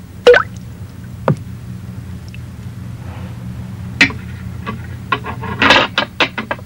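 A series of short, sharp taps over a steady low hum: the loudest comes just after the start, single ones follow about a second and about four seconds in, and a quick cluster of them comes near the end.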